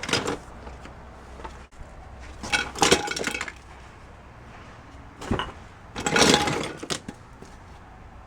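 Small hard objects, glass and metal among them, clinking and clattering in a box as it is rummaged through, in about four short bursts separated by pauses.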